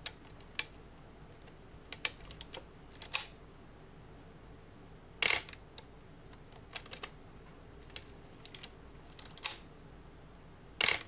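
Pentax K1000 35mm SLR being wound on and fired on blank frames to bring the frame counter to 0 after loading film. Small irregular clicks from the film advance lever and shutter button are heard, along with two louder, longer mechanical clacks of the shutter and mirror, about five seconds in and at the very end.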